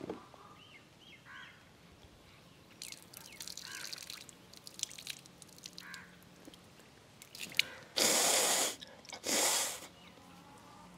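Water being forced from the mouth out through the nose during jal neti: faint dripping and spattering, then two forceful nasal blows about a second apart near the end, clearing water from the nostrils.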